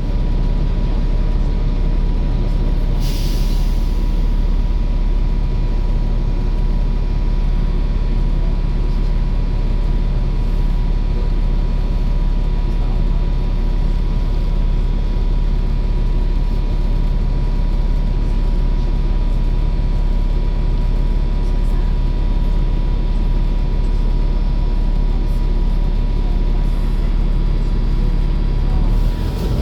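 Volvo B7 bus running steadily, a deep engine drone with a thin steady whine above it. A short hiss of air, as from the air brakes, comes about three seconds in.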